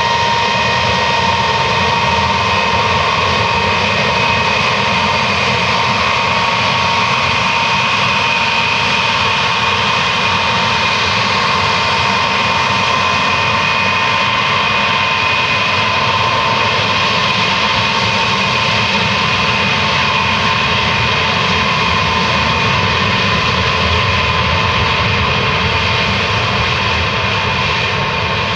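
Xian Y-20A's four D-30KP-2 turbofan engines running, a loud, steady jet noise with high whining tones that hold a constant pitch.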